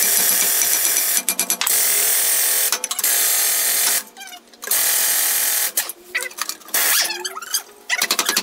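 Hammer blows on a rusted rear brake drum of a 1987 VW Vanagon that is seized on its hub. Metal clanging comes in rapid, nearly continuous runs, broken by short pauses.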